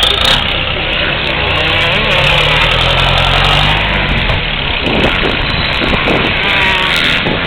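A loud engine running steadily.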